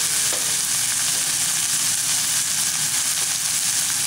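Chopped tomatoes, onion and coriander leaves frying in oil in a pan: a steady sizzle.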